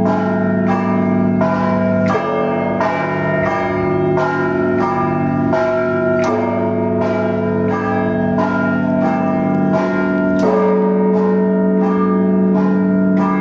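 A peal of Orthodox church bells: several bells are struck in a quick, even rhythm of about two to three strokes a second over the hum of a deep bell. The deep bell is struck harder about two seconds in and again near ten and a half seconds.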